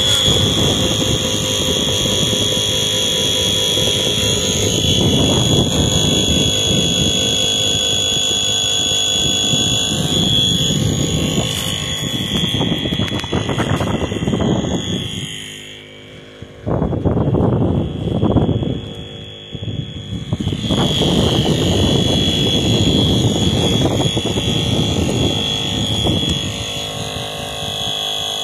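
Airbank Puffer Pro electric pump running and inflating a kite, a steady high whine over a rushing noise. Around the middle the whine drops away for a few seconds, with a couple of loud surges, and then comes back.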